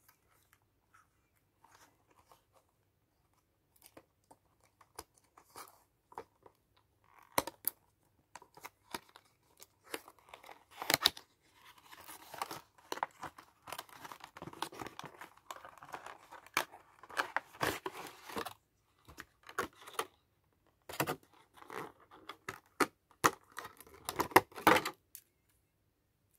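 Card-and-plastic retail packaging of a charging cable being handled and opened: rustling, crinkling and clicks, sparse at first and much busier from about ten seconds in.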